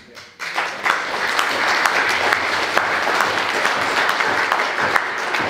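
Audience applauding: dense clapping starts about half a second in and swells to a steady level within a second.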